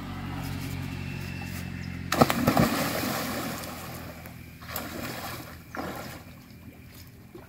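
Water splashing and churning where a cast net has landed in a canal, with fish thrashing under the net. The loudest splashing comes about two seconds in, then fades into smaller splashes twice more.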